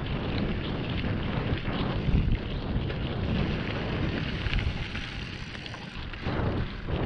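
Wind buffeting an action camera's microphone as a mountain bike rolls over a dirt trail, with scattered small clicks and rattles. It eases for a moment and swells again near the end.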